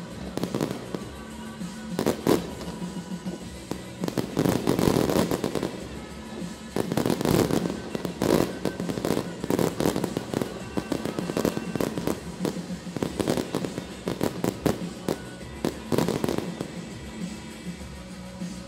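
Fireworks display: a rapid, dense series of bangs and crackling bursts that thins out near the end, with music playing underneath.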